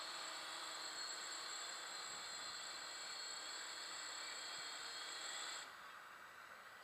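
Small multirotor drone's electric motors and propellers whining steadily with a hiss of prop wash as it comes down low over grass. The whine cuts off abruptly about five and a half seconds in, once the drone has landed.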